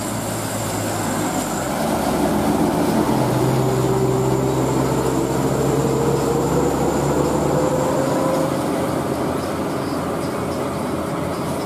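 Diesel engine of a sand-laden Hino 500 dump truck pulling uphill, its pitch rising slowly from a few seconds in, over a steady hiss.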